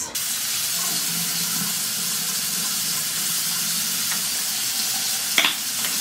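Bathroom sink faucet running steadily into the basin while the face is washed, a constant hiss of water, with one short louder sound about five and a half seconds in.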